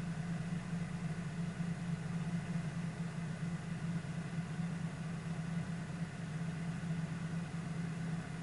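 Car engine idling steadily, an even low hum with no change in speed, heard from inside the stationary vehicle.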